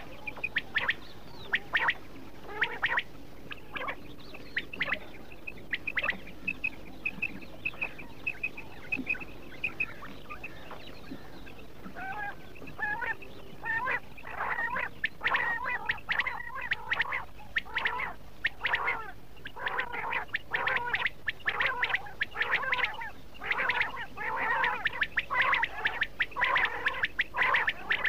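Quail calling: many short, quickly repeated notes. A run of evenly spaced high notes comes about a quarter of the way in, and the calls turn dense and overlapping through the second half.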